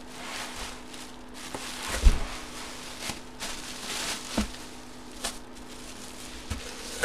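Bubble wrap rustling and crinkling and cardboard scraping as a wrapped helmet is handled and pulled out of a shipping box. There are a couple of knocks, the loudest about two seconds in.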